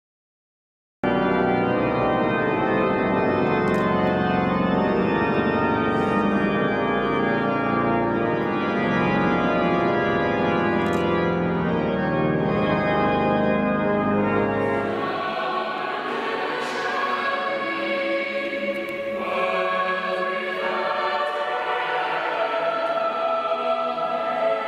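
Cathedral pipe organ playing, starting about a second in, with deep bass notes that drop out about fifteen seconds in, leaving a lighter, higher sound. A church choir sings along with the organ in the later part.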